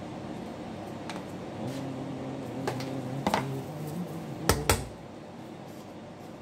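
Hands-on sushi prep at a counter: a few light clicks, then two sharp knocks in quick succession about two-thirds of the way in, the sort a plastic squeeze bottle makes being tapped or set down. A low, steady mechanical hum from kitchen equipment runs under the middle part.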